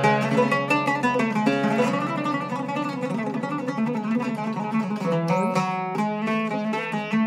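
Iraqi-style Zeryab oud with a cedar soundboard, played with a plectrum: a fast run of plucked notes with rapid picking, with a few sliding notes a little past halfway.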